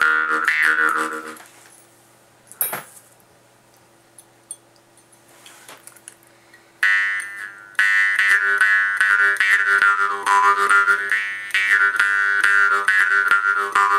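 Jaw harp being played: a rapidly plucked twanging drone whose overtones sweep up and down in a wah-like way. It stops about a second and a half in, leaving a few seconds of quiet with a single stray twang, then starts again about seven seconds in.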